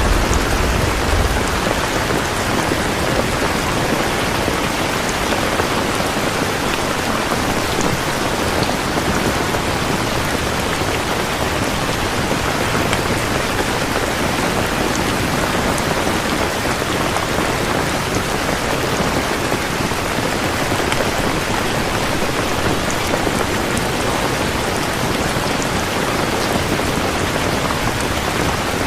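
Steady rain, an even dense hiss of drops falling on surfaces, with a low rumble dying away in the first second or so.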